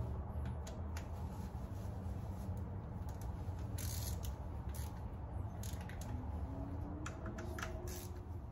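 Scattered light metallic clicks and scrapes of a hand tool turning the T30 Torx screws that hold an engine dipstick tube, with a short scraping stretch about four seconds in and a cluster of clicks near the end, over a low steady hum.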